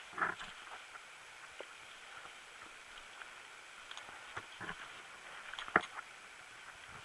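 Soft scattered crunching and rustling of someone moving over rough ground, with one sharp snap or crack about six seconds in.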